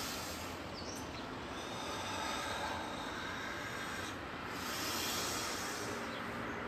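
A man breathing deeply and slowly through a martial-arts breathing exercise: long rushing breaths that swell and fade, the strongest about two and five seconds in, over a steady background hiss.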